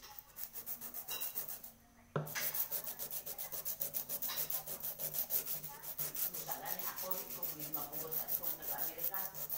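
Sandpaper rubbed by hand on the outer wall of a small metal pot: quick back-and-forth scratchy strokes, several a second, with a brief pause about two seconds in before the sanding resumes steadily.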